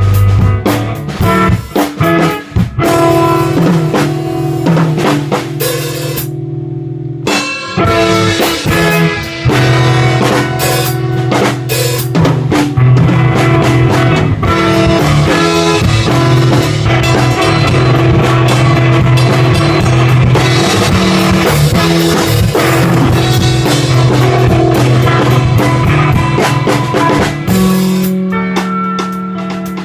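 A drum kit and an electric guitar playing together in a live rehearsal jam. Around six seconds in the drums drop out for about a second, then come back in.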